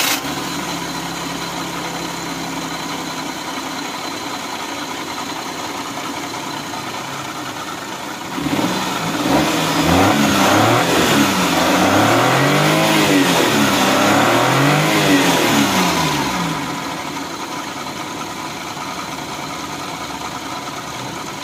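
Suzuki Mehran's 796 cc three-cylinder petrol engine idling evenly. From about eight seconds in it is revved by hand several times in quick succession, the pitch rising and falling with each blip, then it settles back to a steady idle. The idle now runs smoothly with no hunting or missing, after water-soaked sensor connectors were cleaned and dried.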